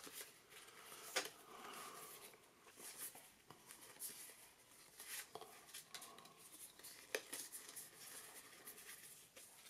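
Faint rustle of a hand-held stack of Magic: The Gathering cards as cards are slid one at a time from the front to the back, with a few sharper flicks at irregular intervals.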